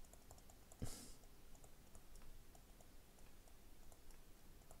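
Near silence with faint scattered clicks of a stylus tapping a tablet screen during handwriting, and one louder click with a short hiss about a second in.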